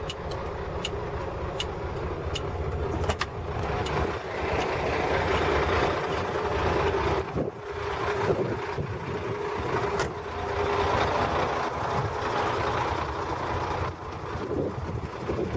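Road vehicle on the move: steady engine and road rumble, with a row of evenly spaced high ticks in the first few seconds.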